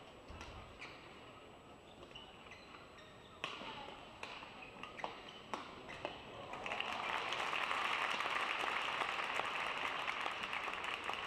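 Badminton racket strikes on a shuttlecock: a few sharp hits under a second apart in a rally. About six and a half seconds in, an arena crowd breaks into loud applause that runs on.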